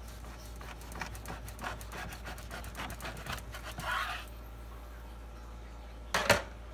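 Long knife drawn back and forth through a dry-aged rib roast, a quick run of sawing strokes for about three seconds ending in a scrape. Then a single sharp knock near the end, the loudest sound.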